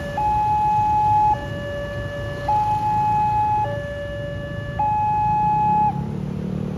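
Railway level-crossing warning alarm sounding a two-tone hi-lo signal: a higher tone and a lower tone alternate about once a second, then it stops about six seconds in as the barrier arm lifts. Motorcycle and car traffic rumbles underneath.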